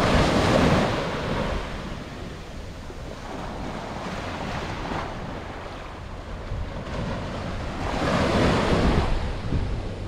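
Small waves breaking and washing up a sandy shore, with wind buffeting the microphone. The surf swells louder twice, near the start and about eight seconds in.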